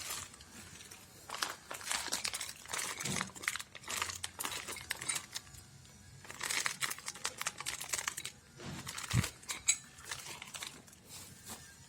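Packaging being unpacked and handled: irregular bursts of crinkling and rustling, with small clicks and a couple of soft knocks.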